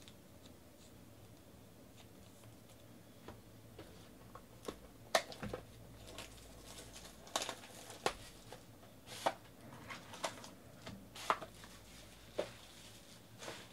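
Foil wrapper of a Panini Origins football card pack crinkling and crackling as it is handled and opened, with the cards inside sliding and clicking. The sharp crackles come irregularly from about four seconds in.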